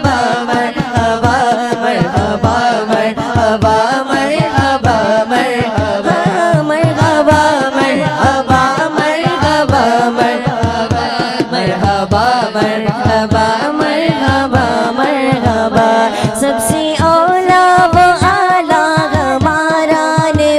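Islamic devotional song (naat) playing: a wavering sung melody over a steady drum beat of about two strokes a second.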